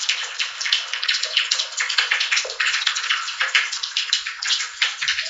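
AI-generated rain sound: a dense, irregular patter of raindrops on a window pane, heard as if from inside the room. It was made by the FoleyCrafter model from a prompt for raindrops on glass.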